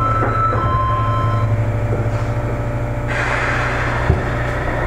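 Inside a Sendai Subway 1000 series car standing still at a platform: a steady low hum from the train's equipment, a hissing rush that comes in about three seconds in, and a single sharp thump a second later.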